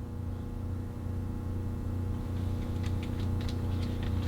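Steady low hum, with a few faint clicks and taps starting about halfway through.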